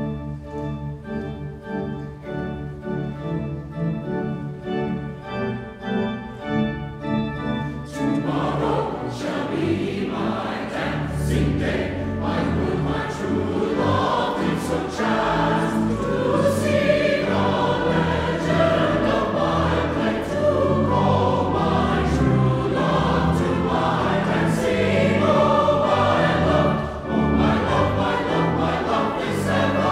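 Mixed choir singing a carol with instrumental accompaniment. The first eight seconds or so are an instrumental introduction of repeated notes; then the voices come in, with sharp percussion strikes over them.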